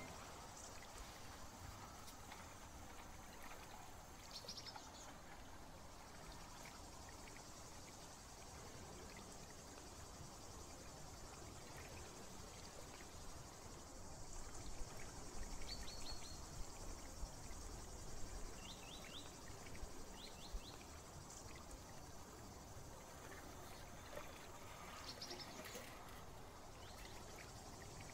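Quiet garden ambience: a steady low hiss with occasional short high chirps, each a quick run of three or four pulses, a few times across the stretch.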